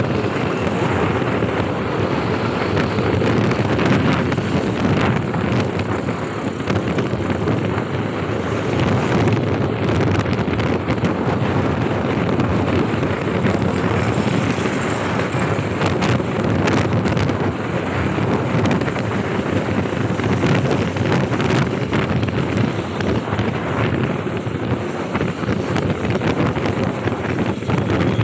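Wind rushing over the microphone of a moving motorcycle, steady with frequent brief gusts, mixed with the rumble of the bike and the surrounding road traffic.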